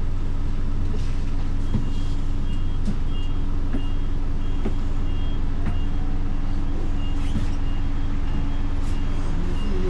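Bus diesel engine idling steadily while the bus stands at the stop, with a short high electronic beep repeating about once or twice a second over it.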